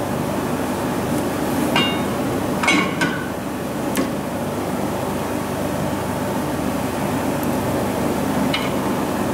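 Steel parts clinking and knocking a few times as a heavy slotted steel plate is handled and set onto a torque converter, each clink ringing briefly; most come in the first half, one more near the end, over a steady machine hum.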